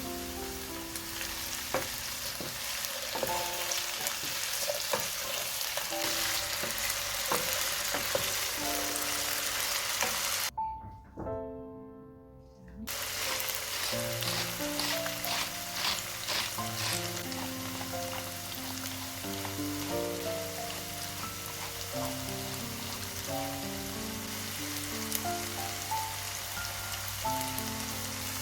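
Food sizzling as it fries in vegetable oil in a pan, over soft background music. The sizzle cuts out for about two seconds past the middle, leaving only the music, then returns.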